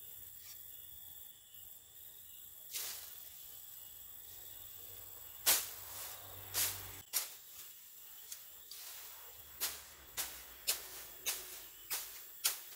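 Tall grass being cleared by hand in quick strokes: a sharp swishing rip, sparse at first and then about twice a second from about halfway in. Under it, a faint steady high insect drone.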